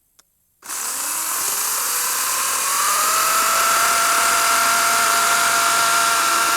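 A battery-powered chainsaw starts about half a second in and cuts wood. Its motor whine rises in pitch over the next couple of seconds and then holds steady over the loud hiss of the chain.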